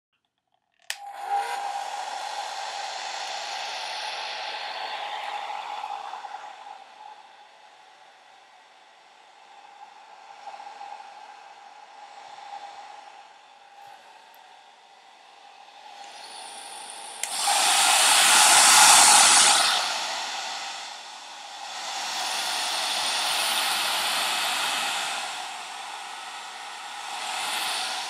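Handheld hair dryer switched on with a click about a second in, then running steadily: rushing air with a steady whine. It grows louder and softer several times as it is moved about, and is loudest a little past halfway.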